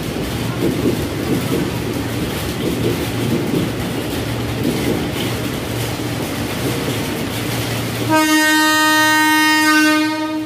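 Trains running on the rails with a steady rumble, then a train horn sounds one long, steady blast for about two seconds near the end, louder than the rumble.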